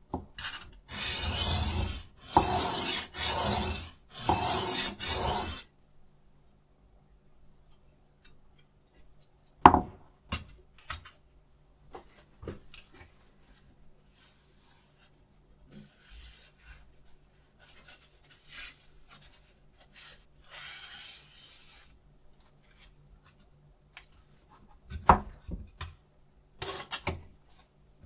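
Three long rasping strokes of a kitchen knife's edge drawn across a diamond sharpening plate, one after another in the first few seconds. After that come scattered quiet clicks and a few sharp knocks as the sharpener's clamp and plate holder are handled.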